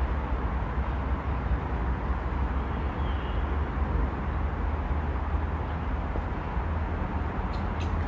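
Steady low rumble of outdoor background noise, with a faint short high chirp about three seconds in.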